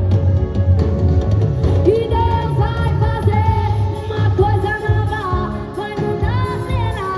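A female vocalist singing a gospel song live with a band: keyboard, a pulsing bass line and drums.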